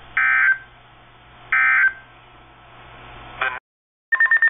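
NOAA Weather Radio SAME digital data tones through a weather alert radio's speaker: two short warbling data bursts about a second and a half apart, the last of the three-burst end-of-message code that closes an alert. A click and a brief cut to silence follow, then near the end a new burst of data tones, the header of the next alert.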